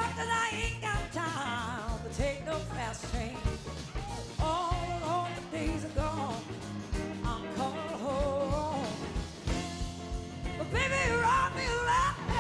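Live blues-rock band playing: a woman sings lead with a strong vibrato over electric guitar and drums, holding a long high note near the end.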